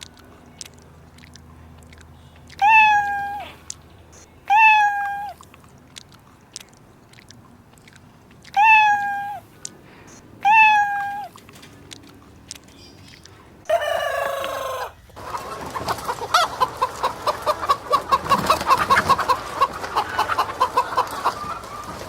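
A domestic cat meowing four times, each meow a short call about two seconds apart. About two-thirds of the way through, the cat gives way to chickens: one harsher call, then hens clucking rapidly and continuously.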